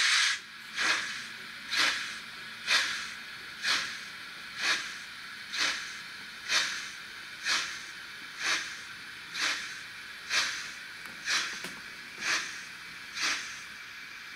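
Trix 22960 BR 96 Mallet model steam locomotive's sound module playing slow steam chuffs, about one a second, over a steady hiss of steam. A loud burst of steam opens the sequence.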